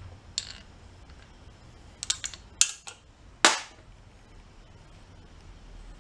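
Sharp metallic clicks and clinks from an air compressor piston and its connecting rod being handled and turned over for inspection. There are a few scattered clicks, closely bunched around two seconds in, then two louder sharp ones.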